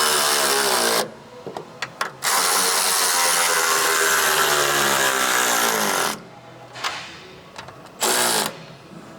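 Handheld power tool run in three trigger pulls: a short one, a long one of about four seconds whose pitch sinks as it winds down, and a brief blip near the end, with a few light clicks between runs.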